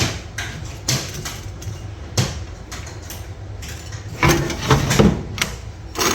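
A few separate knocks and clatters of kitchen things being handled on a counter, with a quicker run of them about two-thirds of the way through.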